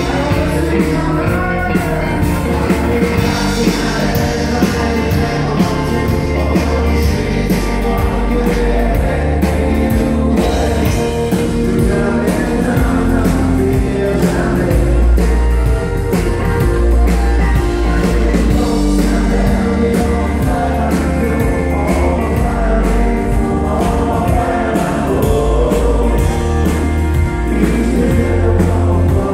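Live band playing a song: a male lead vocalist singing over drums, acoustic and electric guitars, heard loud and steady.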